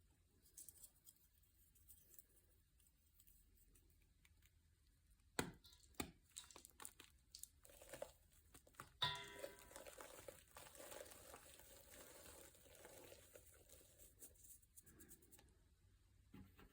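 Faint handling noise: a few sharp taps and clicks, then a sudden tear about nine seconds in, followed by several seconds of crinkling, tearing noise.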